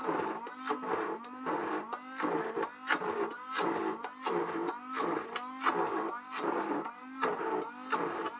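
Electric immersion blender puréeing beetroot mash in a pot. Its motor pitch sweeps up and drops back about twice a second as the blade is worked through the mash.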